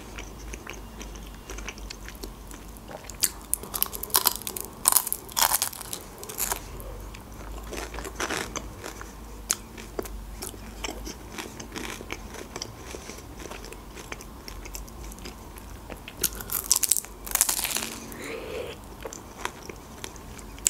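Bites into a crisp, flaky pastry pie crust, picked up close by the microphone, followed by chewing. There is a run of crunching bites a few seconds in and another near the end, with quieter chewing in between.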